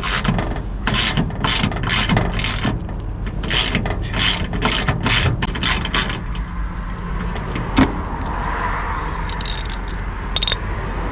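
Hand ratchet and socket clicking in short bursts, about twice a second, as it is swung back and forth on an underbody bolt; the clicking stops about six seconds in, and a single sharp knock follows near eight seconds.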